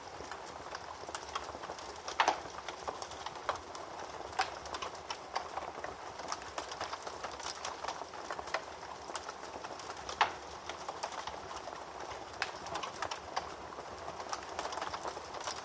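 Wood fire in a fireplace crackling: a steady hiss with irregular snaps and pops, two louder pops about two seconds in and about ten seconds in.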